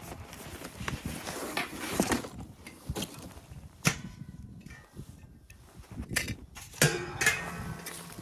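A few sharp knocks scattered among handling and rustling noises, with a louder cluster of knocks near the end.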